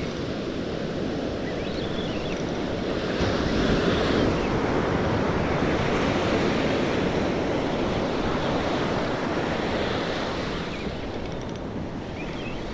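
Ocean surf breaking and washing up a beach, with wind on the microphone; the wash swells about three seconds in and eases near the end.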